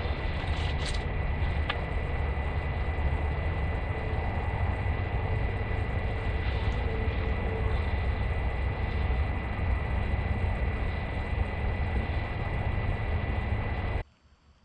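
Wind buffeting the microphone: a steady low rumble and rush, with a thin steady high tone behind it. It cuts off abruptly near the end.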